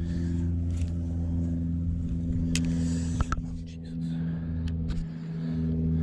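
A steady low motor hum made of several even tones, like an engine running nearby, dipping briefly near the end. A few sharp clicks and knocks from handling the spinning rod and reel sound over it.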